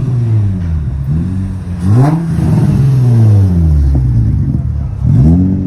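Car engine revved hard about three times, its pitch jumping up sharply and sinking back each time, the biggest rev about two seconds in.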